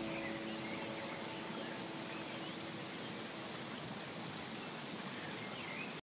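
Steady hiss of rushing water, with a few faint chirps now and then. The last held note of a soft musical chord fades out over the first few seconds.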